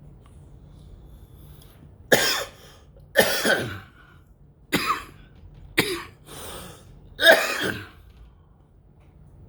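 A person coughing: a run of about five short coughs over several seconds, the last the loudest.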